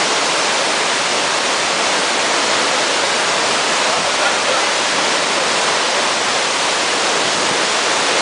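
Waterfall: falling water rushing loudly and steadily, without a break.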